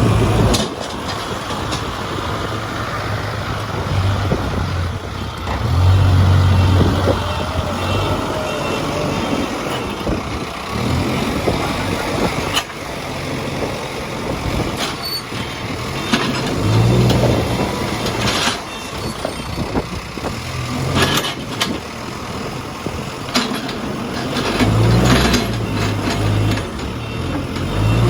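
Case 851EX backhoe loader's diesel engine running and swelling under load three times, with a steady hiss and scattered sharp knocks and clanks.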